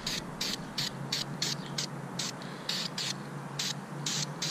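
Aerosol can of high-temperature primer spraying in short, irregular bursts of hiss, about three a second, as thin coats go onto the exhaust headers.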